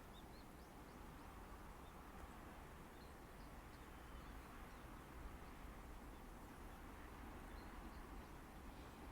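Near silence: a faint low outdoor rumble with a few faint, short high chirps from birds.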